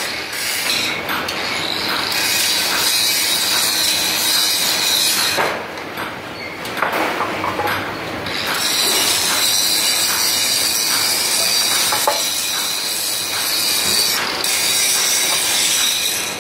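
Loud, steady mechanical running noise with a faint regular clatter, easing off for about two seconds in the middle.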